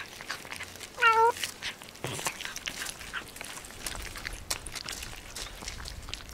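A cat gives one short meow about a second in, over soft clicks and smacks of cats chewing boiled fish off a plate.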